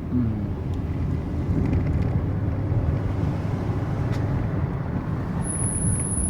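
Chrysler 300C driving, a steady low road and engine rumble. About five and a half seconds in, a thin, high-pitched chirping squeal sets in from the rear brakes. It is the residual squeal left after the pads were modified, which the shop says this car's heavy rear calipers can never be rid of entirely.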